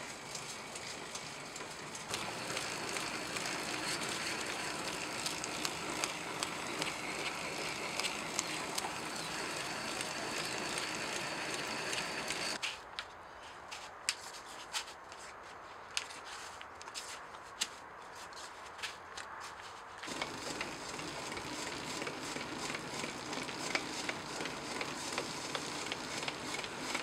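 Leaf-spring steel axe head being ground on a turning grinding wheel: a steady gritty hiss with crackling ticks. About twelve and a half seconds in the hiss drops away to scattered clicks, and it comes back about twenty seconds in.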